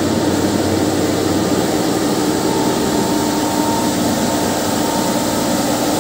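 Carpet spin-dryer drum spinning at speed, a steady mechanical drone with a hum, as rinse water is fed in to flush foam and dirty water out of the washed carpet.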